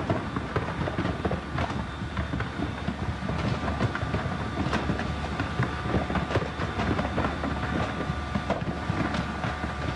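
Large building fire burning with a steady rumble and frequent sharp crackles and pops. The fire is in a perfume warehouse, and officials attributed the popping heard at this fire to perfume bottles bursting.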